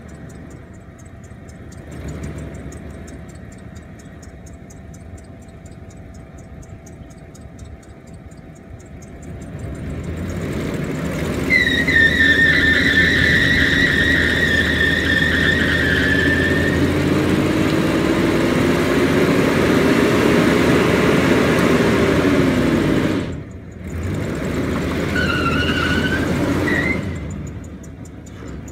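Chevy LT1 V8 in a Buick Roadmaster hearse rumbling low, then revving hard about ten seconds in as the rear tyres spin in a smoky burnout, squealing steadily for around ten seconds. The engine cuts off abruptly, then a second, shorter burst of wheelspin follows with short tyre chirps before it drops back down near the end.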